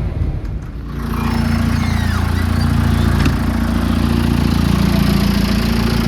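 Vehicle engine running steadily with a broad hiss of air or road noise. About a second in, the sound changes from a low rumble to a louder, steadier engine hum.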